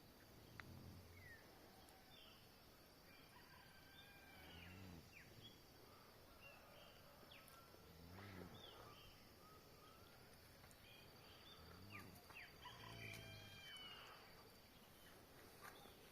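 Faint birds chirping in the early morning, with a low call repeating about every three to four seconds.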